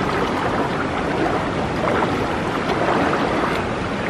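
Fast-flowing muddy stream rushing steadily, with water sloshing around a person wading through it.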